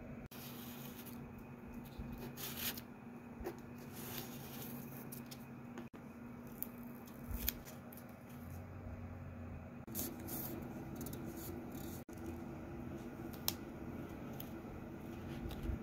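Transfer tape and vinyl decal rustling and crinkling in the hands, with scattered short crackles as the tape is handled and pressed onto a ceramic mug. A faint steady hum runs underneath and shifts slightly about ten seconds in.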